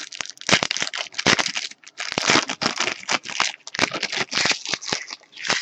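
Baseball card pack wrapper crinkling and tearing as it is ripped open by hand and the cards are slid out: a close run of loud, irregular crackles.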